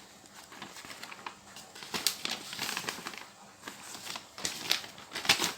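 Plastic packaging crinkling and rustling as parts are handled, with scattered light clicks and knocks; the loudest ones come about two seconds in and near the end.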